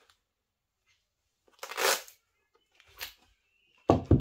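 A camouflage pistol holster being handled: a half-second rustling scrape about halfway through, a shorter one a second later, and a sharp thump near the end, the loudest sound.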